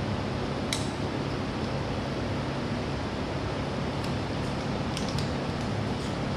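Steady mechanical hum and hiss, with a few short, sharp clicks about a second in and again about five seconds in.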